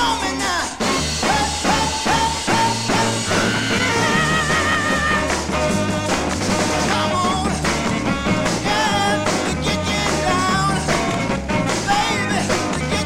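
1960s soul record: an up-tempo band groove with a driving bass line, drums and horns.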